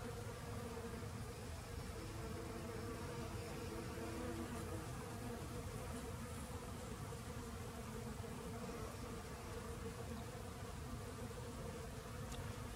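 Honeybees buzzing while foraging on flowering ivy, a steady hum of wingbeats from several bees at once.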